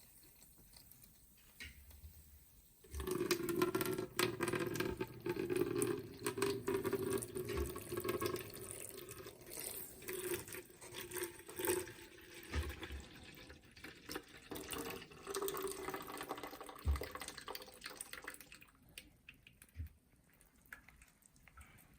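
Water pouring and trickling onto sand in a stream table. It starts abruptly about three seconds in and dies down to faint dribbles near the end.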